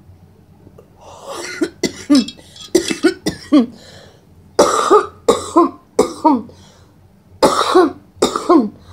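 A woman coughing hard after taking a hit of cannabis smoke from a bong, the smoke irritating her throat: three bouts of short, harsh coughs, starting about a second in.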